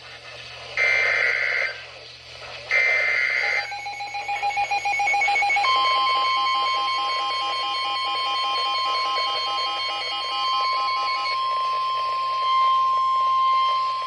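Two short screechy bursts of EAS/SAME digital header tones, then several weather alert radios start beeping their alerts about four seconds in. Near six seconds NOAA Weather Radio's steady 1050 Hz warning alarm tone begins and holds on, and the radios' beeping stops a little past eleven seconds: the start of a severe thunderstorm warning.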